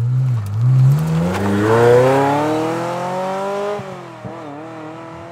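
Ferrari F355 Challenge's 3.5-litre V8 accelerating away, its pitch rising steadily for about four seconds. Near the end the note dips sharply and the engine carries on quieter as the car moves off.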